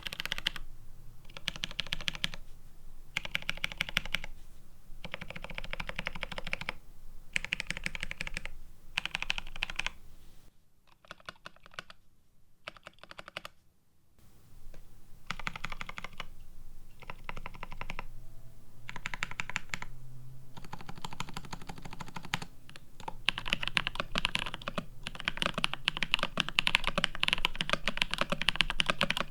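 Typing on a plateless, PCB-mounted GRID 650 mechanical keyboard with GMK keycaps, fitted with C³Equalz x TKC Kiwi tactile switches. The typing comes in bursts of rapid keystrokes with short pauses, and goes much quieter for a few seconds near the middle. About three-quarters of the way through it changes to Holy Boba tactile switches, typed as a louder, unbroken run of keystrokes.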